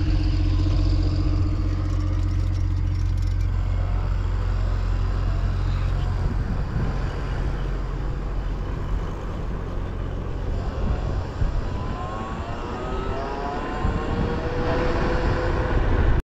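Wind rumble and road noise from riding an electric bicycle along a road, with a steady hum in the first few seconds and a pitched whine that glides up and down near the end.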